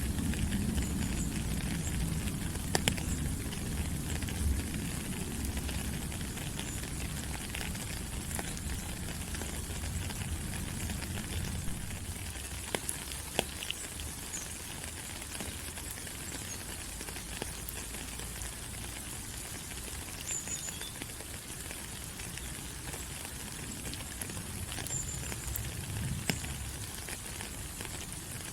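Steady rain falling on rainforest foliage: an even hiss with scattered sharp drip clicks. A low rumble under it fades away over the first dozen seconds, and a few faint high chirps come through past the middle.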